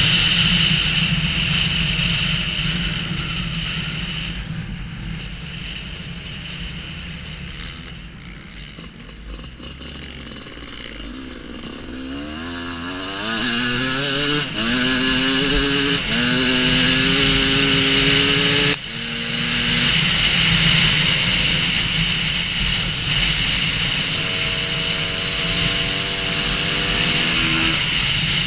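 Off-road motorcycle engine under throttle. It fades away at first, then climbs in pitch several times, each climb ending in a sudden break, like a dirt bike accelerating up through the gears. Another rising run of revs comes near the end.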